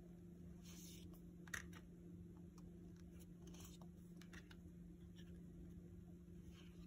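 Faint handling of oracle cards: a few soft swishes and light clicks as the cards are slid across one another and flipped by hand, over a low steady hum.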